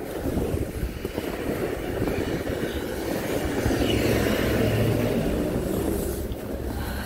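Footsteps crunching through fresh snow, with the low rumble of a vehicle engine that swells and fades about halfway through.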